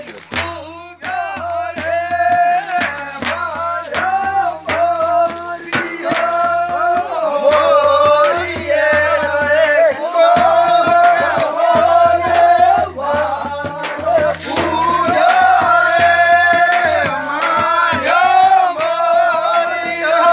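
Desi fagan, a Rajasthani Holi folk song: male voices sing the melody over regular drum beats.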